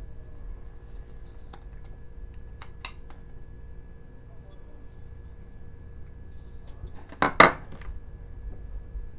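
A carving knife set down on a wooden tabletop: a short, sharp double clatter near the end.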